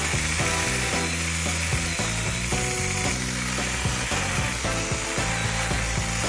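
Makita-compatible cordless mini chainsaw running, its chain cutting into a tree stump with a steady rasping hiss, under background music.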